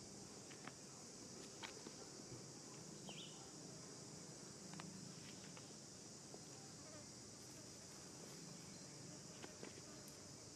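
Faint, steady, high-pitched drone of an insect chorus, with a few soft clicks.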